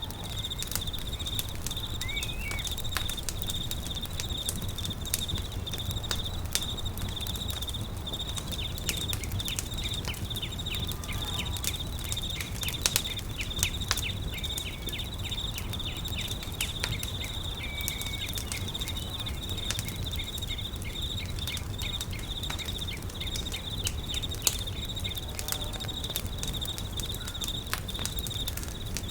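Campfire crackling with frequent sharp pops, over steady high-pitched insect trilling and a low rumble, with a few short faint chirps.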